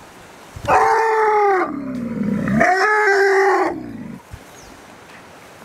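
A one-year-old Asian elephant calf, disabled and lying down, calling out while it is handled: one long call of about three seconds that starts about a second in, dips lower in pitch midway, rises again and fades out.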